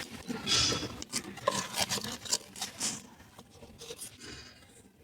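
Light clicks, taps and rubbing of hands handling plastic parts and tools in a car's engine bay, busiest in the first couple of seconds and dying away toward the end.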